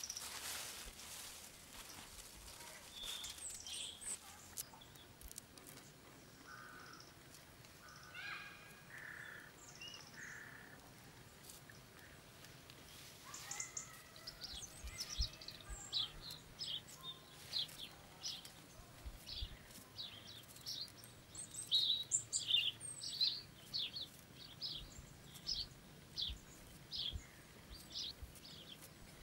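Wild birds calling in woodland: scattered calls early on, then a run of short, high chirps repeating about twice a second through the second half.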